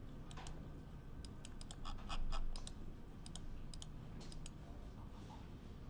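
Faint clicking of a computer mouse and keyboard: scattered sharp clicks, with a quick run of them about two seconds in.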